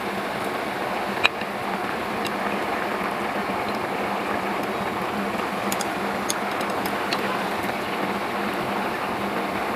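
Pot of water boiling steadily, with a few faint clicks, one about a second in and a cluster near two-thirds of the way through.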